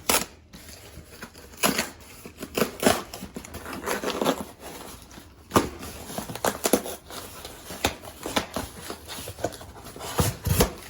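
A cardboard shipping box being worked open by hand: irregular scraping, tearing and crinkling of cardboard and packing tape, with a few sharper snaps, the box being hard to open.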